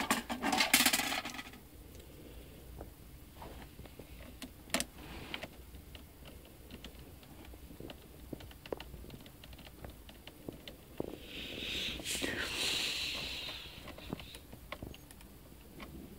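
Small sharp clicks and clinks of plastic and metal parts being handled on an opened netbook's underside as the RAM module is pressed into its slot. A louder burst of handling noise comes at the start, and a longer scraping hiss about twelve seconds in.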